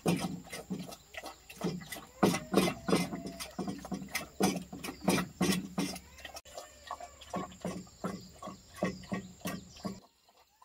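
Wild boar grunting in short, quick, irregular bursts, two or three a second, which cut off abruptly just before the end.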